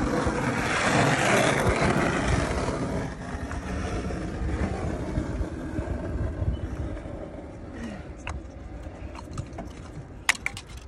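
A passing vehicle whose rushing noise swells and then fades over the first three seconds, over a low rumble that runs throughout. Near the end there are a few sharp clicks as the Saab 9-3's ignition coil pack is handled on the engine.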